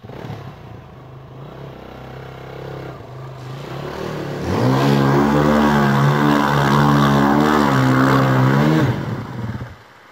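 Enduro dirt bike engine revving as the bike ploughs through a flooded pond. It grows much louder about halfway through, the pitch rises and falls with the throttle, and it drops away near the end.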